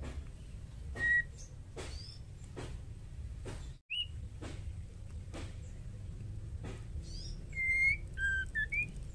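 Female white-rumped shama (murai batu) giving short whistled call notes: single notes about a second in and near four seconds, then a quick run of several notes near the end. Faint clicks repeat about every 0.8 seconds beneath them.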